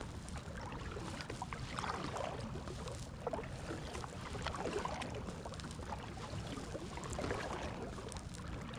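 Double-bladed kayak paddle dipping and pulling through river water in alternating strokes, a splash every couple of seconds, over a steady low rumble.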